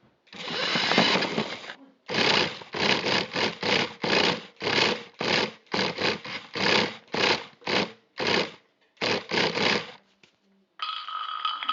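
Electric motor of a toy remote-control car whirring in short bursts as the throttle is blipped: one longer run, then about two quick bursts a second, and near the end a steadier run with a higher whine.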